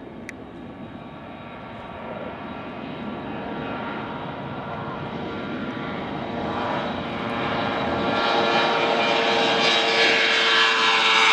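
Beriev Be-200's two turbofan jet engines at high power as the amphibian skims the water and climbs away, growing steadily louder. The engine whine peaks in the last few seconds and begins to drop in pitch near the end as the aircraft passes.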